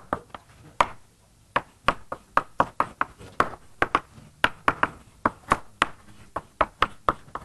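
Writing equations on a board: a run of sharp, irregular taps and knocks, about three a second, as the writing tool strikes the board.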